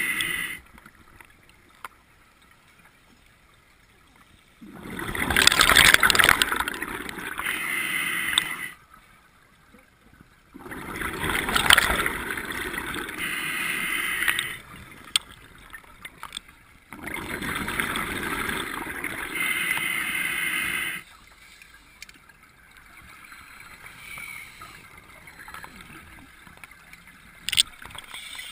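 Scuba diver's exhaled breath bubbling out of the regulator in long gurgling surges of about four seconds, three loud ones about six seconds apart and a fainter one near the end, with quieter pauses for each inhalation between.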